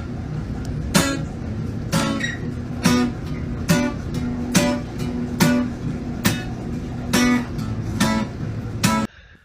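Acoustic guitar music: slow, even strums, a little under one a second, that cut off abruptly shortly before the end.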